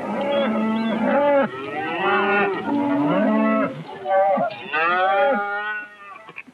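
A herd of cattle mooing, many calls overlapping, dying away near the end.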